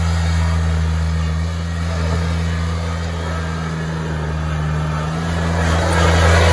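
Lawn mower engine running steadily, over a hiss, getting louder near the end.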